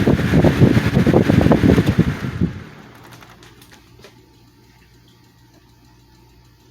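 Patton 12-inch box fan running, a loud uneven low rumble that drops off sharply about two and a half seconds in, leaving a faint steady hum with a few light clicks.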